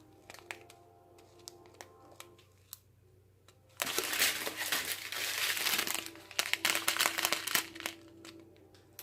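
Small plastic packets of diamond-painting drills being handled and crinkling, with scattered light crackles at first, then a loud stretch of rustling about four seconds in, followed by a flurry of crackles.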